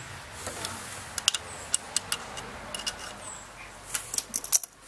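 Light, irregular clicks and taps of small metal and plastic parts being handled in an open distributor as an electronic ignition module and its wires are fitted, with a quick cluster of clicks near the end.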